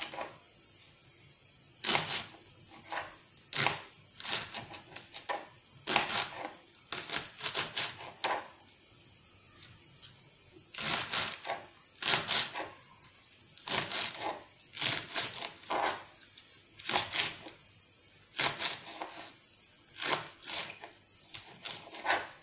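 A knife chopping vegetables on a plastic cutting board: irregular clusters of sharp knocks, a few strokes at a time with short pauses between, over a steady high hiss.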